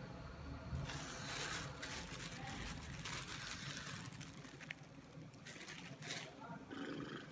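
Thin plastic produce bag crinkling and rustling in a few spells as it is handled and pulled open.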